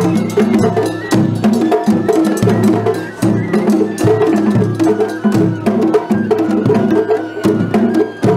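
Japanese festival hayashi music played on a festival float: rapid, sharp drum and wood-block-like strikes over a stepping flute melody.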